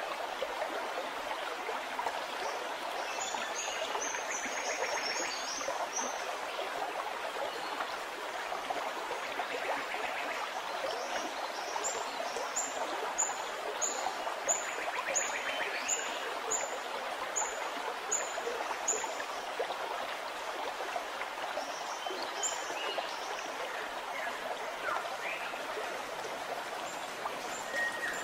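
Steady running water of a stream splashing over rocks. A bird repeats short high chirps about once or twice a second for several seconds near the middle, with a few more early on.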